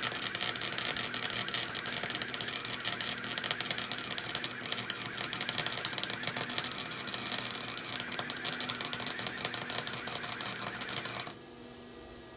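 Harbor Freight Chicago Electric 220 amp flux-core wire-feed welder arc crackling steadily as a bead is laid on a steel exhaust pipe, cutting off abruptly about a second before the end.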